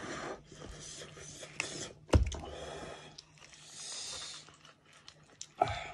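Hands pulling apart a roasted sheep's head: wet handling noises and small clicks, with one loud thump about two seconds in.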